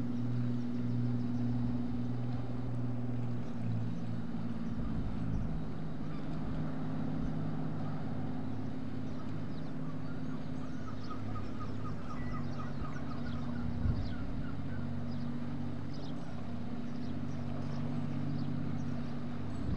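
Landing craft (LCVP) diesel engines running at cruising speed as the craft passes, a steady low drone whose pitch shifts slightly twice. Partway through, a bird gives a quick run of short repeated calls, and there is one brief knock.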